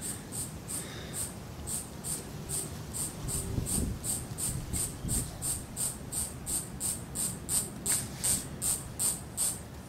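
An insect chirping steadily in a high pitch, about three short chirps a second.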